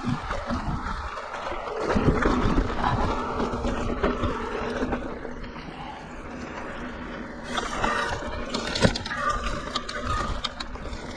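Mountain bike rolling over a rocky dirt trail: tyres crunching and the bike rattling, with wind rumbling on the camera's microphone and a sharp knock about nine seconds in.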